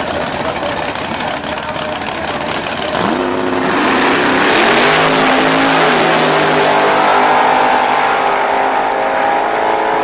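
Two drag race cars, a Camaro and an S10 pickup, running loudly at the starting line, then launching about three seconds in. Their engines rev hard, the pitch climbing in steps through the gears as they accelerate down the strip, easing off slightly near the end.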